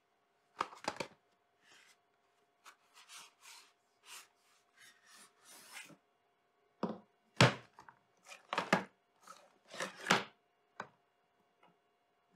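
Unpacking a new chainsaw bar and chain by hand: rustling and scraping of the cardboard packaging, with a few sharp knocks as the steel bar and chain are handled and set down on the plywood bench, the loudest about seven and ten seconds in.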